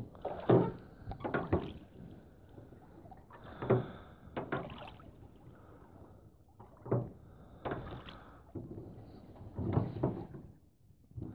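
Oars working in the oarlocks of a small rowboat: a pair of knocks and creaks with each stroke, about one stroke every three seconds, with water swishing off the blades between strokes.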